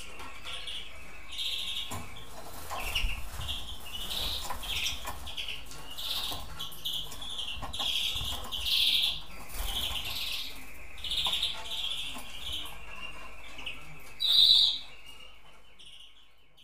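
Pied greenfinches chirping: a steady run of short, high calls, one louder chirp about fourteen seconds in, then the sound fades away at the end.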